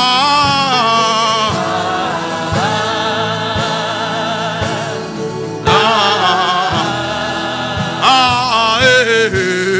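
Gospel worship song: a singer's voice with wavering vibrato, held over backing music with a steady beat.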